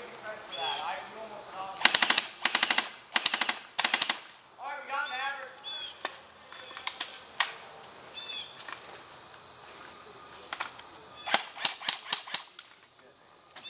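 Airsoft guns firing: rapid bursts of sharp shots about two seconds in and again near the end, with single shots in between. A steady high-pitched cricket chirr runs underneath.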